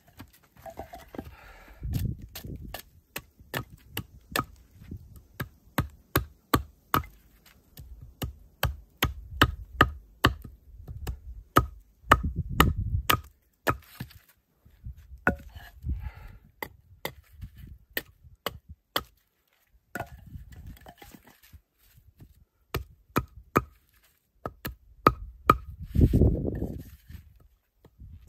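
Repeated sharp strikes of a hand tool, irregular, about two a second. Heavier dull thuds come about two seconds in, near the middle and near the end.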